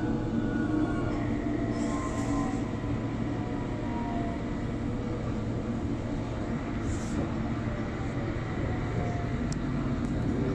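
London Underground District Line train running between stations, heard from inside the carriage: a steady rumble of wheels on the track with a faint whine that drifts slowly down in pitch.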